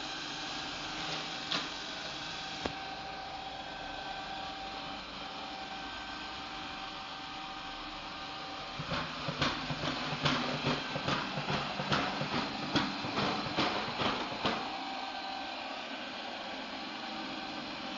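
iRobot Roomba Combo 2 Essential robot vacuum running with a steady motor hum. About halfway through, a run of irregular clicks and rattles lasts about five seconds, then the steady hum goes on alone.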